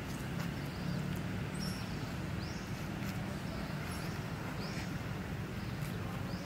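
Outdoor ambience: small birds giving short high chirps about once a second over a steady low hum.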